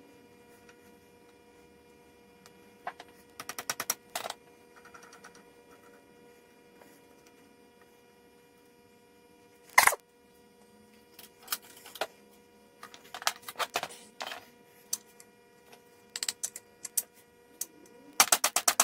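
Metal parts and hand tools clicking and tapping during reassembly of a lathe's quick-change gearbox: scattered groups of sharp clicks, one loud knock about ten seconds in, and a fast run of even ticks near the end. A steady electrical hum runs underneath.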